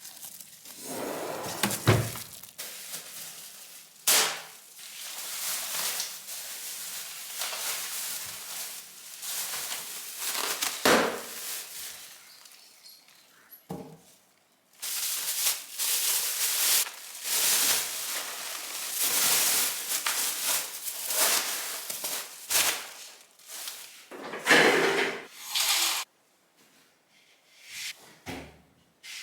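Spice jars and containers being handled and set into a kitchen drawer: repeated knocks, clinks and rustling, with a pause near the end.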